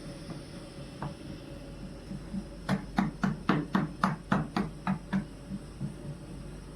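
A quick run of about ten sharp knocks on a hard surface, about four a second, starting a little under three seconds in and stopping after about two and a half seconds.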